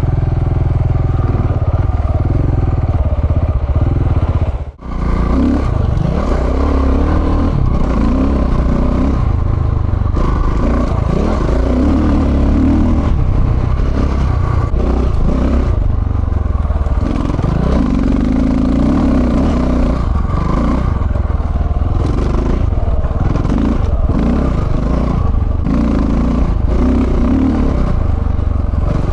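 Single-cylinder 690 dual-sport motorcycle engine riding off-road, its pitch rising and falling with the throttle, with clatter from the bike over rough ground. The sound cuts out briefly about five seconds in.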